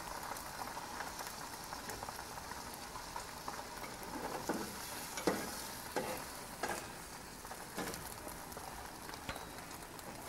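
Ham omelette sizzling steadily on a griddle plate over a gas grill. Several short knocks or scrapes come in the middle of the sizzle.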